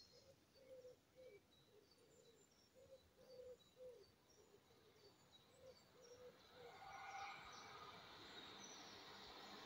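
Faint birdsong, with short low notes repeating and scattered high chirps. About seven seconds in, a faint hiss starts and keeps rising: the approaching Class 159 diesel train, not yet in sight.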